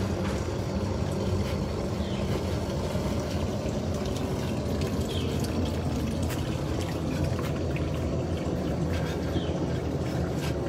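Portable mini glassblowing furnace running, a steady rushing noise.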